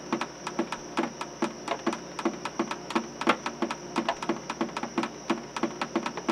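Background music: a light tune of short plucked notes on a steady clicking beat, about four beats a second.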